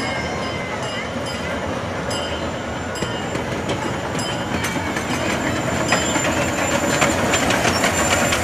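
Miniature ride-on train approaching, its wheels rumbling and clicking over the rail joints, growing louder as it nears.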